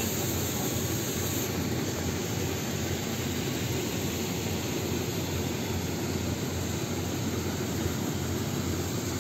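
Steady low mechanical rumble of running farm machinery, unchanging throughout with no distinct knocks or revs.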